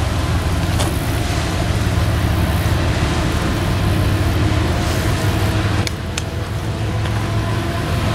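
Motor vehicle running steadily, with a constant low engine hum over road noise, and two short clicks about six seconds in.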